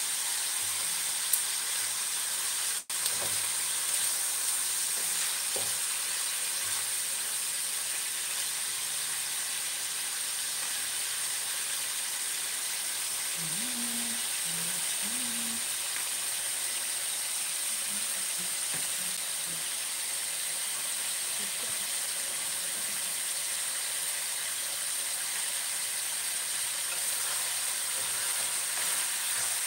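Raw pork cubes sizzling steadily in hot oil in a wok, the first searing stage of a pork caldereta, with the occasional scrape of a wooden spatula stirring them.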